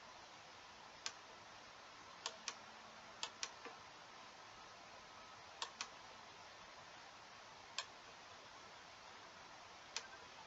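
Computer mouse clicking, about ten short sharp clicks at irregular intervals, several in quick pairs, over faint room hiss.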